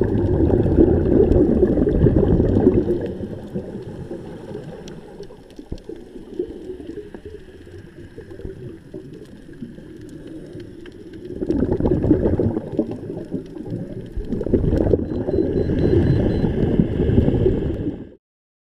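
Underwater, a scuba regulator's exhaust bubbles rush out in three long bursts, one for each breath the diver exhales. Between the bursts there are quieter scattered clicks. The sound cuts off suddenly near the end.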